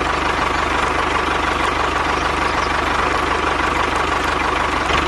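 An engine idling steadily with a fast, even low throb and a constant hum over it.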